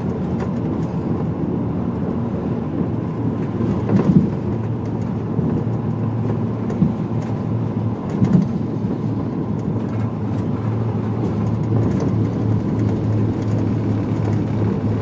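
Medium-size route bus driving, heard from inside the cabin: a steady low engine hum and road rumble, with two short knocks about four and eight seconds in.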